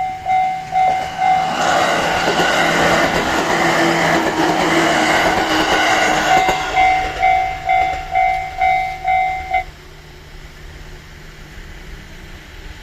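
Japanese level-crossing warning bell ringing steadily, about two strikes a second. A train passes over the crossing from about 2 to 6 seconds in, a loud rushing rumble over the bell. The bell stops abruptly near 10 seconds in as the crossing clears.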